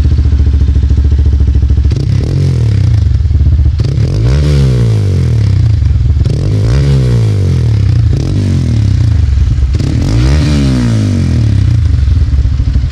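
Hero Xpulse 200's single-cylinder engine idling, then revved with the throttle and let fall back to idle about four times.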